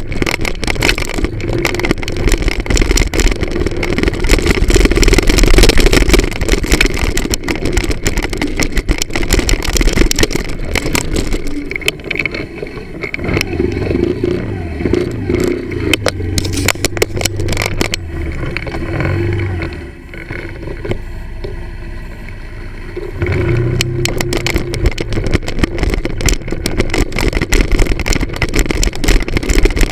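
Moped engine running while riding over a dirt track, with many sharp knocks and noise over it; the engine eases back for a few seconds past the middle, then picks up again about three quarters of the way in.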